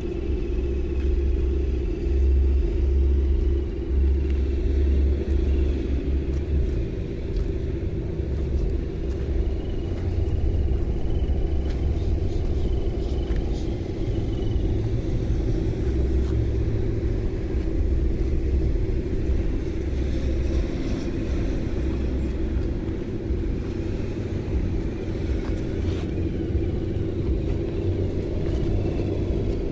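Steady low rumble, uneven like wind buffeting a phone microphone, with a faint thin high whine that wavers slightly, likely from the electric motor and gears of a 1/10-scale Traxxas TRX-4 Defender crawler.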